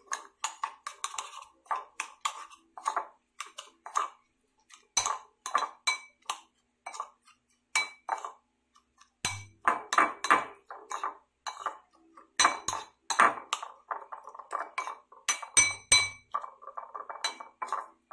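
A metal spoon stirs a crumbly egg and breadcrumb mixture in a ceramic bowl, scraping and clinking against the bowl over and over in an irregular rhythm. Some strikes leave the bowl ringing briefly.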